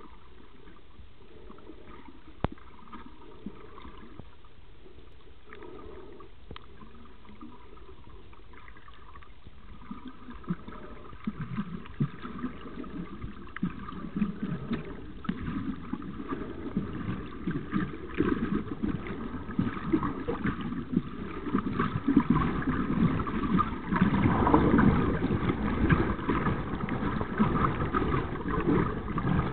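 Muffled underwater recording of water moving around the camera: a steady hiss with a few sharp clicks, then from about ten seconds in a growing crackling rumble as the water is stirred, loudest a little over three quarters of the way through.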